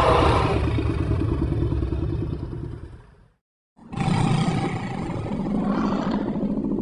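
Two creature growls made as sound effects for a fictional raptor-like dinosaur, each a rough, rapidly pulsing growl. The first fades out about three seconds in, and after a brief silence the second begins.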